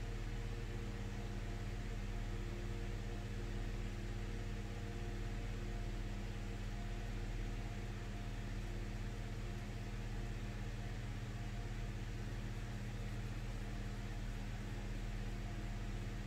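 Steady low machine hum with an even hiss underneath, unchanging throughout.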